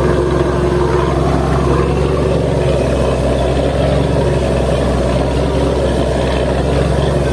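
Ferry's engine running steadily, with water rushing and churning along the hull.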